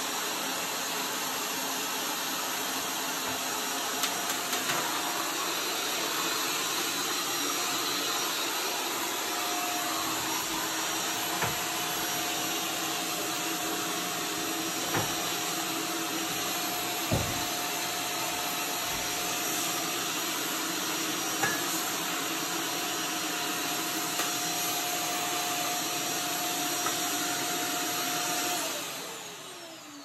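Shark corded vacuum running steadily while its small wand tool vacuums dust off the top of a refrigerator, with a few light knocks of the tool against the surface. Near the end the motor is switched off and winds down with a falling whine.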